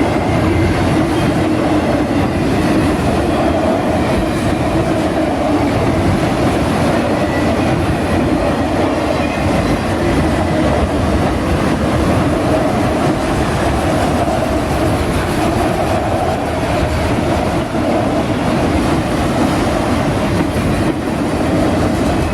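Freight train of autorack cars rolling past, a steady rumble of steel wheels on rail with some clickety-clack.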